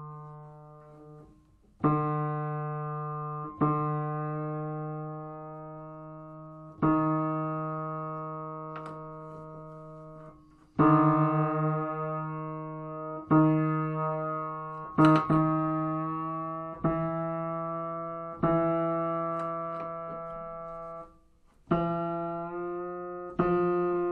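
Upright piano: single tenor notes struck firmly about ten times, each ringing and dying away, with a move up to the next note near the end. This is the repeated test blow of a pitch raise, pulling each flat string up toward an overpull target with a tuning lever.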